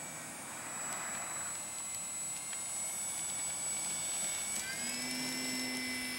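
Parkzone F4U-1A Corsair RC plane's electric motor and propeller running with a steady whine. The pitch steps up a little about four and a half seconds in, as the throttle rises.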